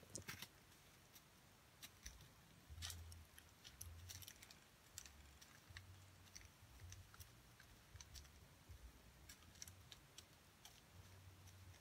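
Faint scattered clicks and light taps of small plastic diamond-painting supplies being handled.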